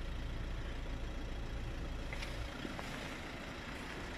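Steady low hum of the Renault Megane's engine idling. It drops a little past halfway, with a couple of faint clicks.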